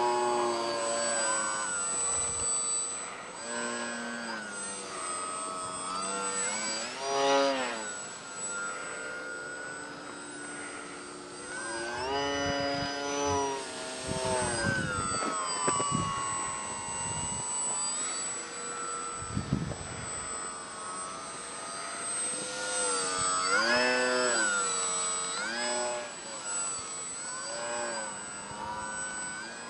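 Grayson Hobby GH2217-09 brushless electric motor and 10x5 propeller of a foam-board RC plane whining in flight, its pitch sweeping up and down and its loudness swelling several times as the plane manoeuvres. A steady high-pitched tone runs under it.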